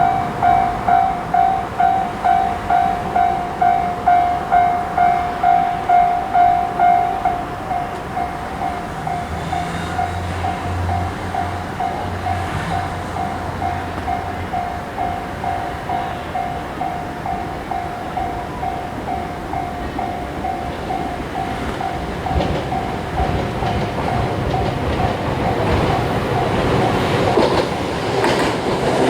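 Japanese level-crossing alarm ringing its 'kan-kan' tone about twice a second. It is loud for the first seven seconds or so, then carries on at a quieter level. Over the last several seconds an approaching Toyohashi Railway Atsumi Line train grows louder, with rumbling wheels on the rails.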